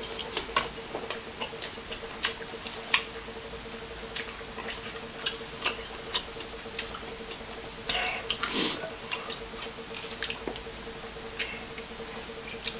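Close-up eating sounds of a saucy seafood boil: scattered wet clicks and smacks as the food is handled and chewed, irregular and never settling into a rhythm.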